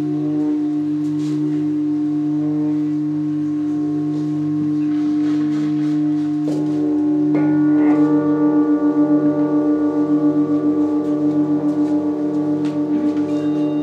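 Several Tibetan singing bowls ringing in long, sustained tones with a slow pulsing beat. New strikes about six and a half and seven and a half seconds in add higher tones, and the ringing swells and pulses more strongly after that.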